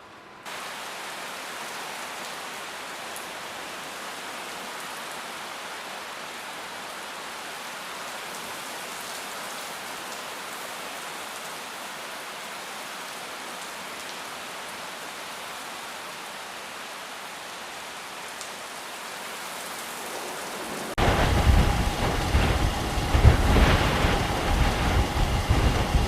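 Heavy rain hissing steadily. About 21 seconds in, a much louder stretch of wind-driven rain with a gusting low rumble takes over.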